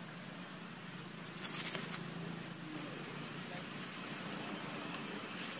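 Steady background hiss with a thin, constant high whine, and a brief crackle about a second and a half in.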